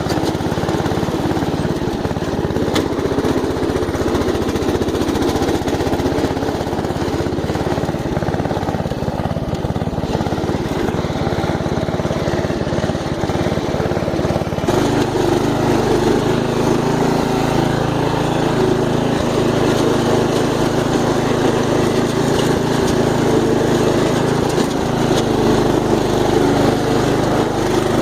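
Riding lawn mower engine running steadily, with its tone shifting abruptly about halfway through.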